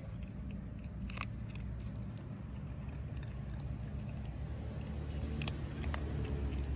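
Cat and kitten chewing dry kibble, with scattered crunchy clicks, over a steady low rumble.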